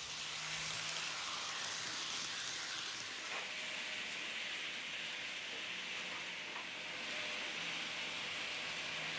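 Kato N-scale Amtrak ACS-64 model train running on its track, a steady hissing whir from the small motor and wheels.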